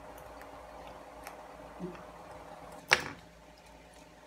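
Light clicks and taps of small mobile-phone parts being handled during reassembly, with one sharp click about three seconds in.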